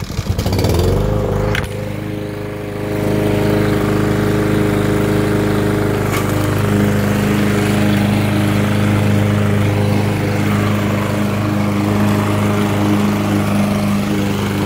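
Craftsman M260 gas walk-behind lawn mower pull-started: the engine catches at once and rises in pitch over the first second. It then runs steadily, with a brief dip in level about two seconds in.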